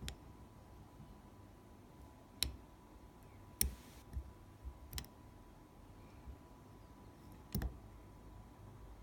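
Lock pick clicking and tapping against the pins inside a CISA 285/75 shutter lock, a handful of separate metallic clicks spaced irregularly over several seconds.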